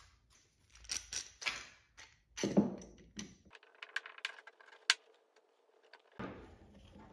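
Wood and metal handling on a workbench: a pine board knocked down onto the bench top, the loudest about two and a half seconds in, then a steel bar clamp clinking and clicking as it is fitted and tightened against the board.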